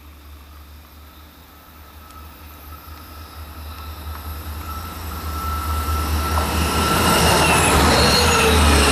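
X 72500 diesel railcar approaching and passing close at speed, its engine and wheel noise growing steadily louder. Its whining tones drop in pitch as it goes by near the end.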